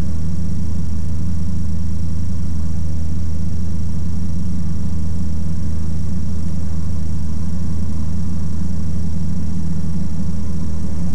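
Ikarus C42 microlight's engine and propeller running steadily in flight: a low, even drone.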